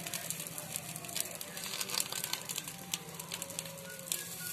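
Small fish and mustard oil sizzling and crackling in a hot frying pan under a covering banana leaf.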